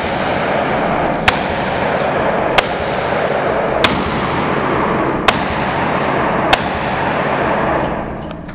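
Handgun fired five times at a slow, even pace, about one shot every second and a quarter, over a steady rushing noise that fades near the end.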